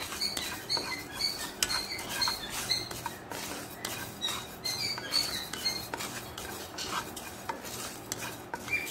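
Wooden spatula stirring and scraping raw rice grains around a nonstick frying pan as the rice dry-roasts, with a steady run of grainy scrapes and clicks. Short high chirps come and go throughout.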